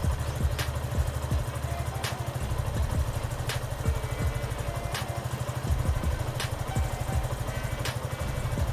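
Suzuki Gixxer SF 155's single-cylinder engine idling steadily. A sharp click comes about every second and a half.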